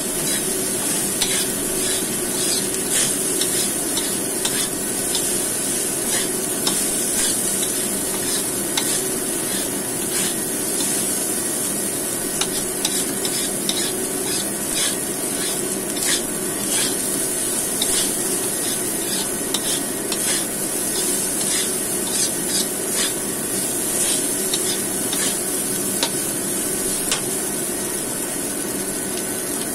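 Fried rice sizzling in a non-stick wok while a metal spatula stirs and scrapes it: a steady sizzle broken by frequent irregular scrapes and taps of the spatula against the pan.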